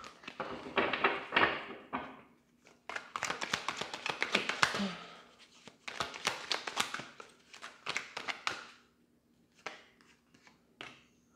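A deck of tarot cards shuffled by hand: four bursts of quick, papery flicking clicks, then a few soft taps near the end.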